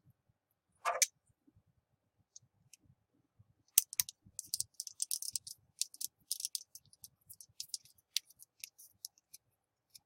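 Small clicks from working a banana plug's screw to clamp a jumper wire end: one clack about a second in, then a run of rapid, irregular light clicks from about four seconds in until near the end.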